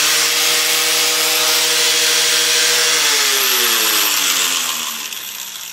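Cheap Harbor Freight angle grinder running steadily at full speed, then switched off about three seconds in and winding down with a falling pitch. It is running again after being fitted with new brushes.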